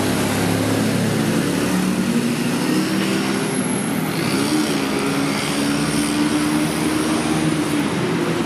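City road traffic: the engines of passing cars and motorbikes make a steady din, with engine notes rising and falling.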